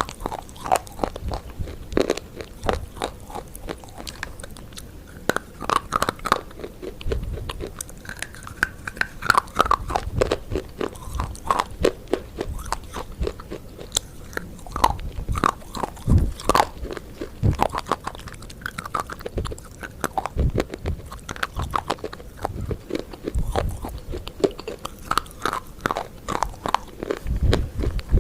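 Close-miked crunching and chewing of crisp food: a dense, irregular run of sharp crackles with occasional low thuds.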